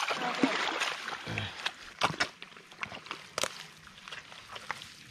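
Sloshing in shallow muddy water for the first second or so, then scattered wet slaps and squelches of mud being scooped up by hand.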